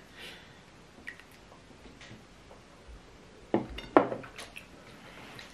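Eating by hand at a table: fingers working soft fufu and soup in glass bowls, with scattered small clinks of glass. Two louder sharp sounds come about three and a half and four seconds in.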